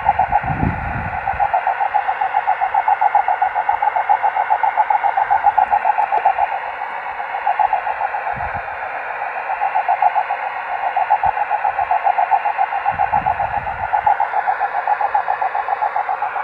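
Amateur microwave receiver audio: another station's carrier heard as a single tone with a rapid, rough flutter over steady receiver hiss. It has the 'auroral sound' that a signal picks up when it is scattered off rain.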